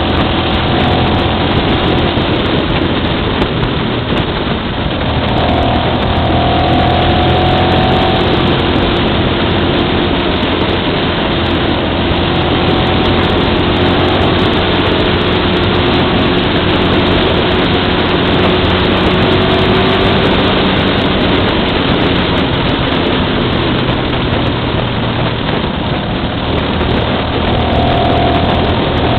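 Motorcycle engine running at steady cruising revs, its pitch shifting slightly a few times, under heavy wind rush on the microphone.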